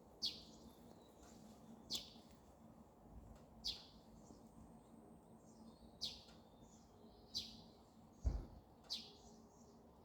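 Small songbirds giving a repeated sharp chirp that drops in pitch, six times, about every one and a half to two seconds, over a faint steady low hum. A single dull thump a little after eight seconds in.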